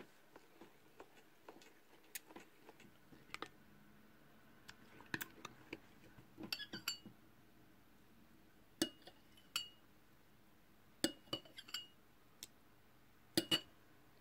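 A spoon clinking lightly against glassware, a dozen or so separate clinks spread irregularly, several with a short glassy ring, as borax water is spooned into the slime mixture.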